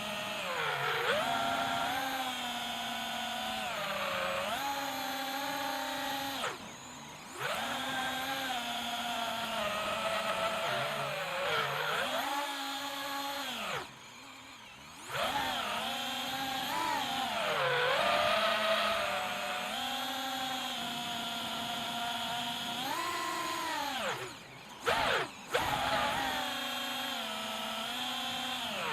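FPV quadcopter's brushless motors whining, the pitch rising and falling with throttle. The sound drops away briefly three times, near the middle and twice near the end.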